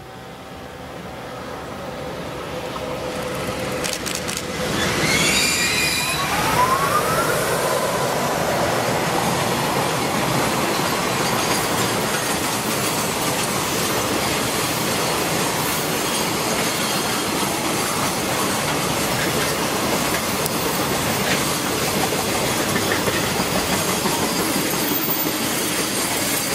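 EH500 electric locomotive passing under dynamic braking, its brake-resistor blower spinning up in a rising whine about five seconds in. It is followed by the steady noise of a long container freight train's wagons rolling past on the rails.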